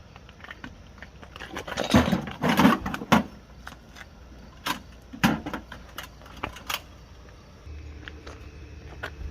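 Metal tools and parts clinking and rattling as they are handled during brake work. A burst of rattling clanks comes about two seconds in, followed by several separate sharp metallic clicks.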